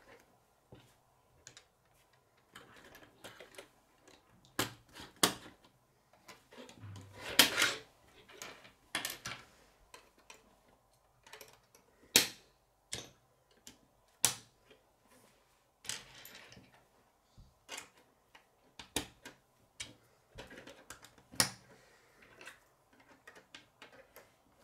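Plastic K'nex rods and connectors being snapped together and set down on a wooden tabletop: irregular sharp clicks, one every second or so, with a longer clatter of parts about seven seconds in.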